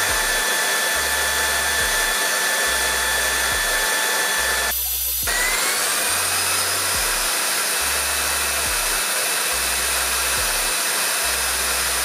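ORFELD EV679 cordless stick vacuum's dual motor running with a steady rushing airflow and a high whine in standard suction mode. About five seconds in the sound drops briefly as it is switched to powerful (20,000 Pa) mode, then the whine rises in pitch as the motor spins up and settles at a higher, louder speed.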